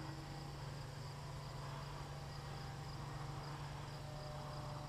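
Crickets chirping faintly and steadily over a low, steady hum.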